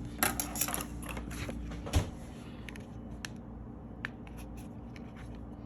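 A quick flurry of small clicks and taps, then a single knock about two seconds in and a few faint ticks, over a low steady hum.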